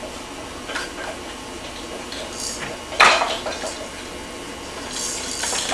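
Scattered clinks and clatters of hard objects being knocked together, the loudest a sharp clatter about three seconds in, with more light rattling near the end.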